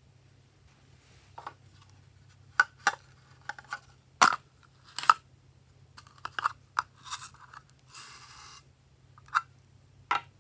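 A small printed toy box being handled and opened by hand: a string of sharp clicks, taps and crinkles, with a short rustling scrape about eight seconds in.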